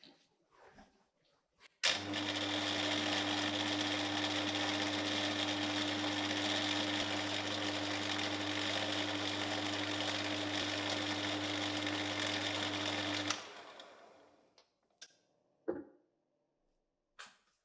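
An electric motor switches on with a click, runs at a steady speed with a constant hum for about eleven seconds, then is switched off and winds down. A few light knocks follow near the end.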